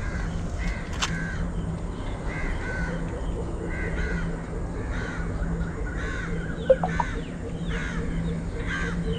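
Birds calling over and over, one to two short calls a second, over a steady low hum. A brief sharp sound about seven seconds in is the loudest moment.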